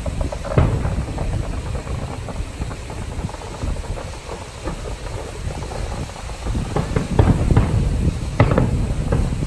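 Fireworks going off: a run of irregular bangs over a low rumble, coming thicker in the last few seconds.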